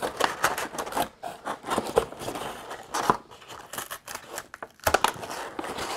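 Cardboard packaging scraping and rustling, with irregular light clicks and knocks, as a boxed toy model and its cardboard inserts are worked out of the box.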